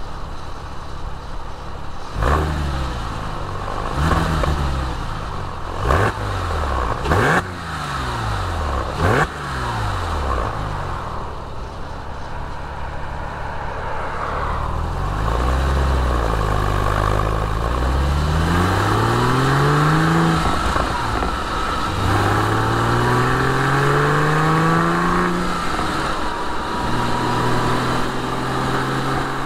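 Porsche 997 Carrera 4's 3.6-litre flat-six exhaust under load through the six-speed manual. In the first ten seconds the engine pitch rises and falls several times, with a few sharp loud knocks. It then pulls up through the gears, the pitch climbing and dropping at an upshift twice, and settles into a steady, slowly rising drone near the end.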